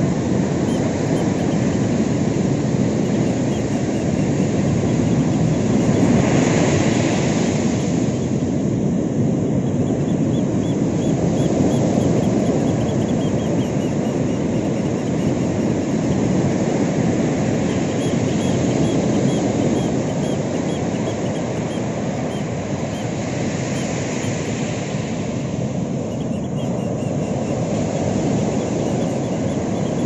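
Ocean surf breaking on a sandy beach: a steady rush of waves, swelling louder with a breaking wave about six seconds in and again past twenty seconds.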